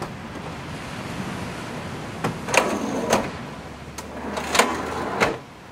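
Drawer slides in the back of a 4WD rolling twice as the storage drawers are worked while packing up, each slide beginning and ending with a clunk, over a steady hiss of surf and wind.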